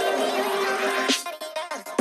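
Background music with sustained melodic notes. Just before the halfway point a swish passes through, and after it the music thins out to sparser notes.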